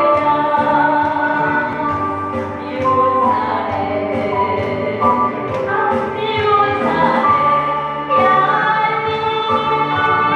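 Korean trot song: singing over a band backing track with a steady beat.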